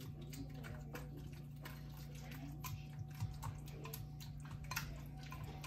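Pampered Chef Mix 'N Chop mashing cooked potatoes with heavy cream in a pot: soft wet squishing with irregular light clicks of the tool against the pot, over a steady low hum.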